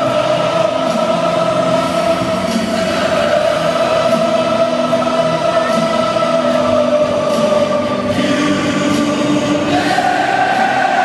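Football stadium crowd of thousands singing together in long held notes, with the melody stepping up in pitch near the end.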